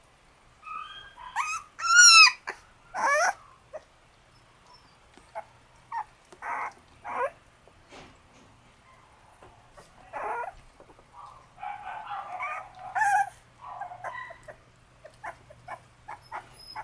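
Shiba Inu puppies yipping and whining, with a loud run of high, wavering yelps about two seconds in, then scattered short yips and a busier cluster of small calls near the end.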